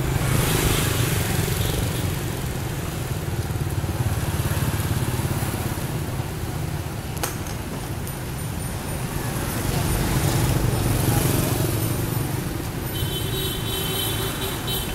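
Street traffic with motorbikes passing, heard from a moving cyclo as a steady low rumble and road noise. Near the end a short high-pitched beeping tone sounds over it.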